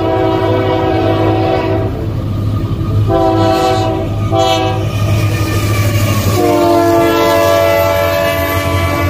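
Union Pacific GE C45ACCTE lead locomotive's air horn sounding long, long, short, long, the pattern of a grade-crossing signal. The last long blast drops slightly in pitch as the locomotive passes, over the steady low rumble of the diesel engines.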